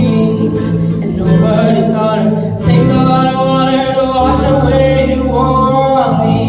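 Group of voices singing a cappella in close harmony, holding long notes through the closing line of the song.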